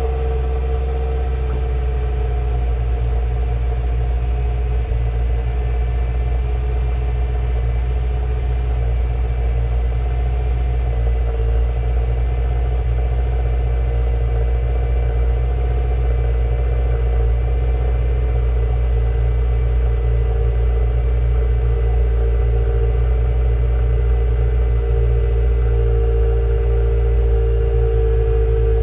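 2017 Subaru WRX's turbocharged flat-four engine idling steadily on a cold start, heard right at its quad exhaust tips as a low, even rumble.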